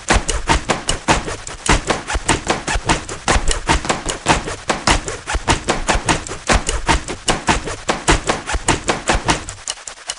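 A rapid run of sharp clicks and taps, several a second, made with jeans and set into a rhythmic track. The clicks thin out and get quieter near the end.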